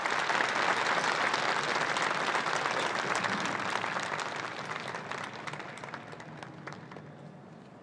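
Crowd applauding: a dense patter of many hands clapping that thins and fades over the second half, leaving a few scattered claps near the end.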